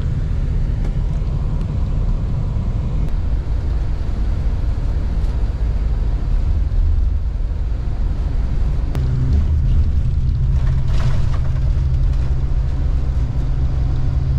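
Low rumble of a coach's engine and tyres heard inside the passenger cabin while the bus drives; a steadier engine hum sets in about nine seconds in.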